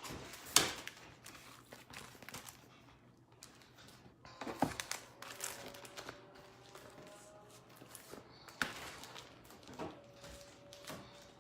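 Items and packaging being handled and set down: scattered light knocks and clicks with some crinkling rustle, the sharpest knock just after the start.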